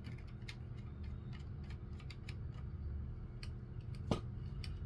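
Scattered light clicks and taps of hard plastic toy-blaster and tripod parts being handled and fitted together, with one sharper click about four seconds in.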